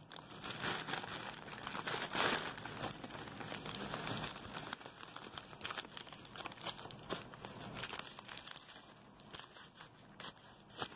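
Paper and plastic packing wrap being crinkled and torn off a well-taped package, a dense run of crackles that is busier in the first half and quieter in the second.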